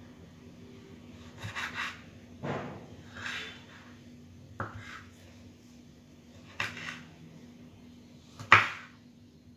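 Kitchen knife cutting a tomato on a wooden cutting board: about six separate cuts, irregularly spaced, each a short knock of the blade reaching the board, the last one near the end the loudest.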